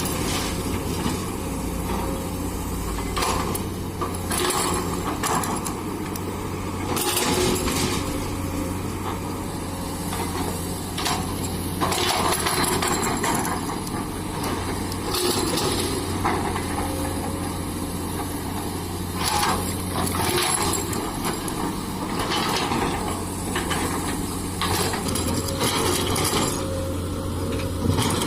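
Komatsu PC200 excavator's diesel engine running steadily at working speed, with louder noisy stretches every few seconds as it digs and loads a dump truck.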